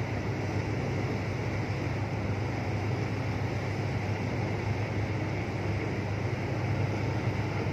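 Ship engines running with a steady low drone under an even wash of noise.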